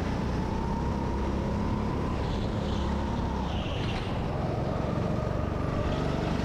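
Rental go-kart engine running at speed, recorded on board the kart, its pitch rising and falling a little through the corners.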